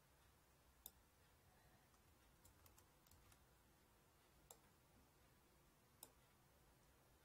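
Near silence with a few faint, scattered clicks, about six over several seconds, made while a handwritten formula is being edited on a computer screen.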